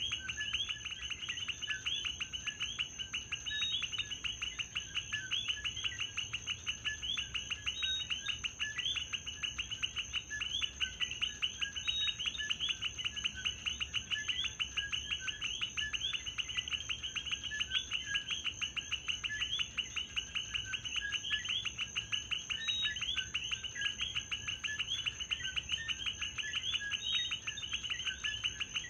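Night chorus of many coquí frogs, their two-note "co-quí" calls overlapping densely and repeating without a break, over a steady high-pitched tone.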